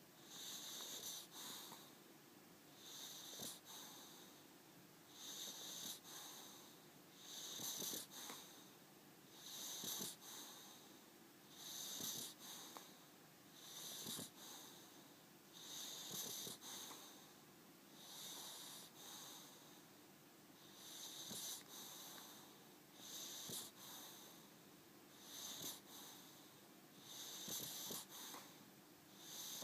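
Boxer dog snoring in its sleep: a steady rhythm of quiet, wheezy snores about every two seconds, each with a high whistle.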